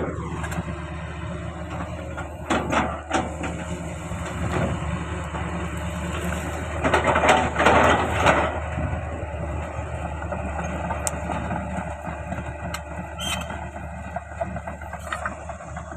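Excavator diesel engine running steadily at work, with louder bursts of scraping and squealing about three seconds in and again, loudest, around seven to eight seconds in, and a few sharp clicks near the end.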